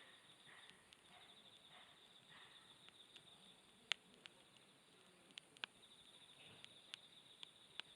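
Faint, steady, finely pulsing high insect trill, with about half a dozen sharp crackles from a wood campfire; the loudest pop comes about four seconds in.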